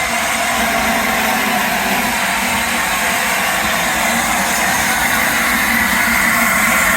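Railway train running, a steady continuous rumble with no clear beat, and a faint high whine that rises slightly near the end.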